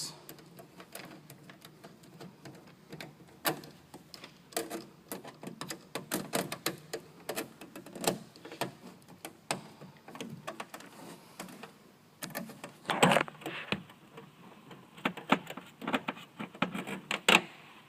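Irregular light clicks and taps of a hand tool on metal bracket hardware as the bracket nuts are tightened, with a louder cluster of clicks about two-thirds of the way in.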